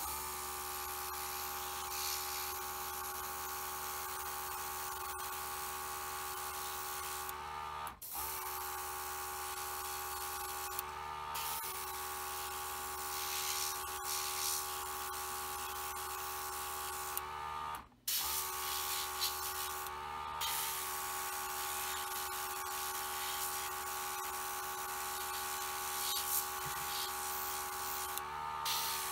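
Airbrush compressor running steadily with an even motor whine, and air hissing from a gravity-feed airbrush as it sprays acrylic paint, the hiss swelling and easing as the trigger is worked. The sound cuts out for a split second twice.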